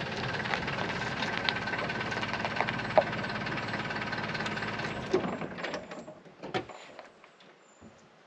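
Land Rover engine running steadily, then shut off about five seconds in, followed by a few short clunks and clicks.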